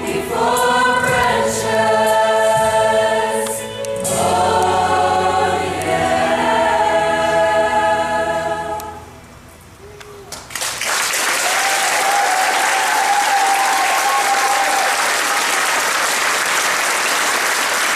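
Mixed high school choir singing the sustained closing chords of a song, the last chord dying away about nine seconds in. About a second later the audience breaks into steady applause.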